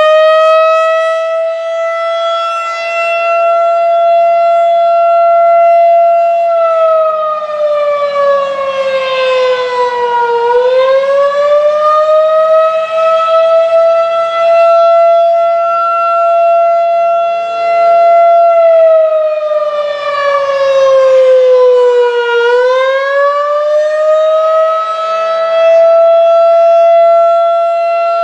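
Federal Signal 2001 outdoor warning siren sounding a custom attack signal. Its single tone climbs to a high pitch and holds steady for about five seconds, then falls over about four seconds and climbs again. The cycle runs twice, ending on a held high tone.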